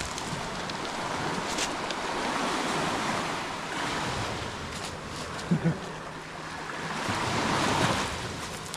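Sea waves washing onto the shore, swelling and easing twice.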